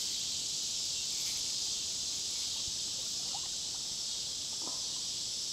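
Steady, high-pitched drone of an insect chorus, even and unbroken throughout.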